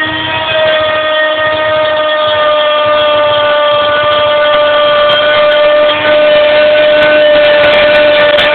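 CNC milling machine spindle running with a loud, steady whine while milling 2.5 mm ABS plastic sheet; the loudness dips briefly about six seconds in.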